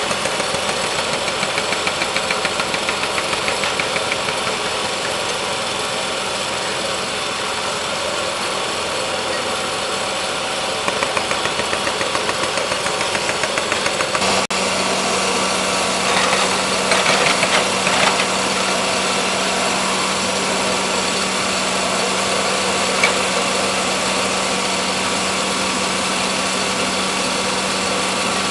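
Small petrol engines of portable track-maintenance power units running steadily. A steadier low hum joins about halfway through.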